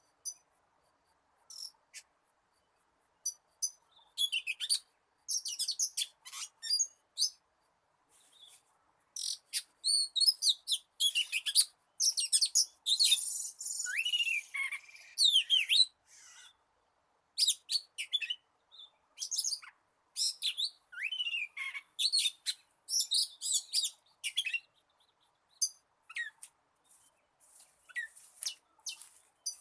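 Oriental magpie-robin singing in the wild style: a varied run of clear whistles, sweeping notes and sharp chirps, delivered in bursts with short pauses and busiest through the middle.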